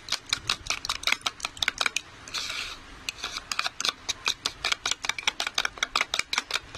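A steel spoon clicking rapidly against the side of a bowl as a raw egg is beaten with sugar and salt, several strokes a second, with a brief swish about two and a half seconds in. The beating goes on until the sugar dissolves.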